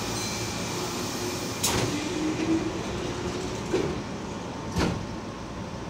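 Keihan Electric Railway train standing at an underground platform with its doors closing: a sharp clunk about a second and a half in, a low hum for about two seconds, then more clunks, all over the car's steady equipment noise.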